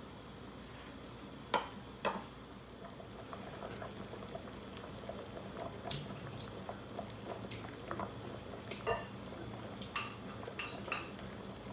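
A pot of bamboo-shoot soup bubbling as it comes to the boil. A ladle knocks against the pot twice near the start, then the broth sets up a growing patter of small bubbling pops.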